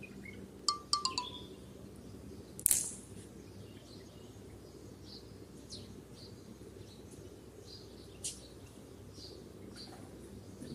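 Small birds chirping now and then over a steady low background hum: a quick run of short chirps about a second in, one loud sharp chirp a little later, then fainter scattered chirps.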